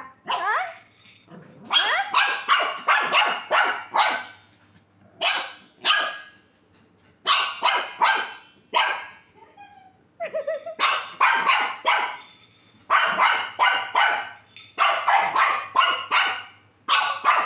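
Small long-haired dog barking in rapid runs of short, sharp barks, with brief pauses between the runs.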